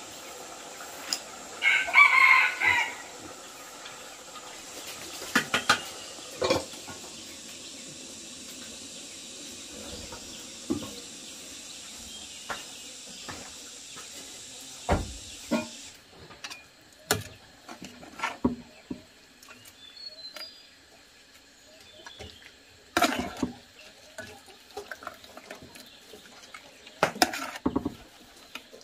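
A rooster crows once about two seconds in; this is the loudest sound. After it come scattered light knocks and clicks from chopsticks, footsteps and a ladle against a metal pot.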